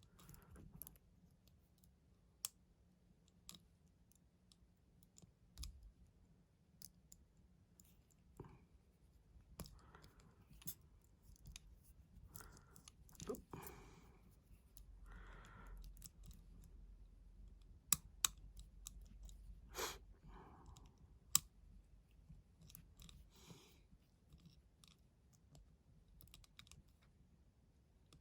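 Faint, scattered metallic clicks and light scraping of a lever-lock pick tool working the levers inside a five-lever padlock, with a few sharper clicks around two-thirds of the way through.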